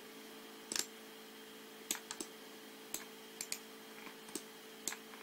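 A dozen or so scattered single clicks of a computer mouse, faint over a steady low electrical hum.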